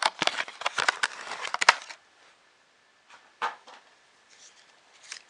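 Plastic packaging crinkling and rustling as a cable is unwrapped by hand, dense and crackly for about two seconds, then a single small click.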